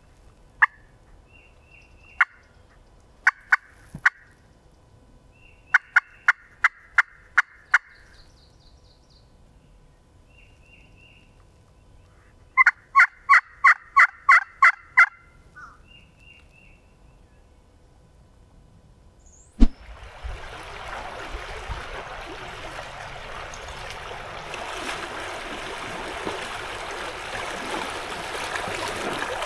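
Turkey clucks and yelps: a few single sharp clucks, then a run of six yelps, and after a pause a louder run of about eight, with faint songbird chirps between. About two-thirds in a knock is followed by a steady rush of wind noise.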